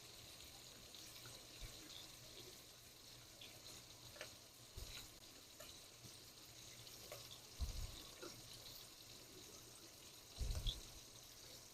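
Near silence with a faint hiss, broken by a few soft knocks and light clicks: a knife working on a cutting board as smoked sausage is sliced.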